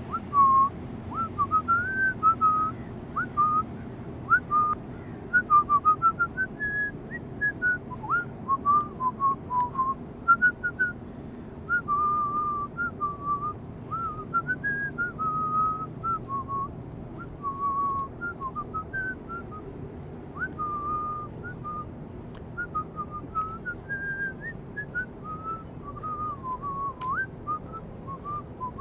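A person whistling a wandering tune, one clear note at a time with short glides between notes, over a faint low background rumble.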